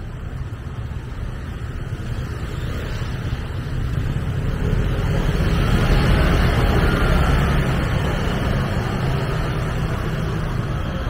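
Street traffic: a motor vehicle engine approaching and passing close by, its rumble swelling to its loudest about six seconds in and then easing off.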